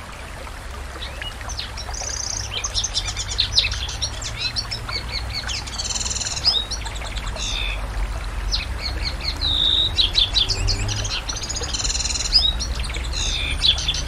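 Domestic canary singing a long, varied song of rapid trills and chirps, starting about two seconds in, over a steady low rumble.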